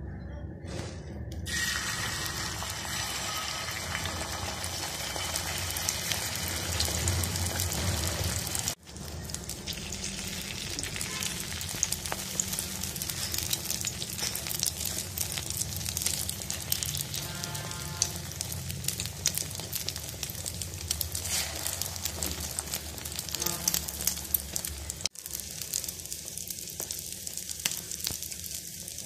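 Egg omelette with chopped onions sizzling in oil on a hot griddle: a steady frying hiss full of small crackles. It starts about a second and a half in and breaks off briefly twice.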